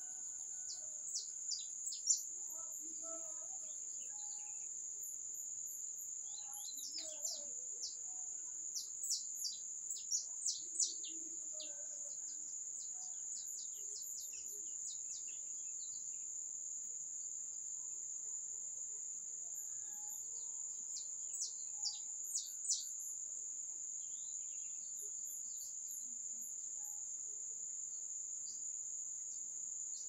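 A steady, high-pitched insect drone throughout, with wild birds calling over it in runs of quick, falling high notes: a few about two seconds in, a long run from about seven to fifteen seconds, and a short burst around twenty-two seconds.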